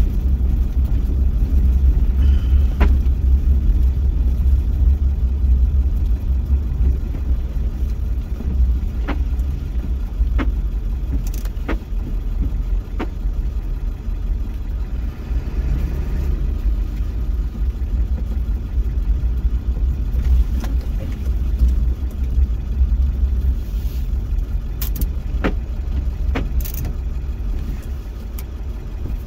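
Road and engine noise inside a moving pickup truck's cab: a steady low rumble, with a few scattered light clicks and knocks.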